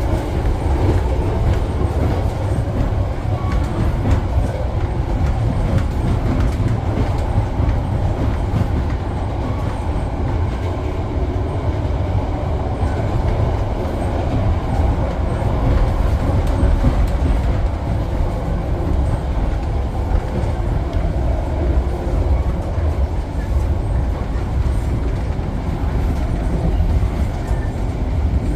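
Passenger train running along the track: a steady, loud low rumble of the wheels and carriage.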